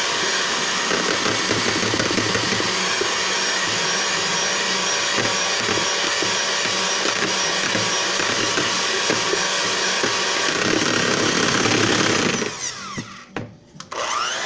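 Electric hand mixer running steadily at speed, its beaters whipping eggs in a bowl. The motor sound drops away about twelve and a half seconds in.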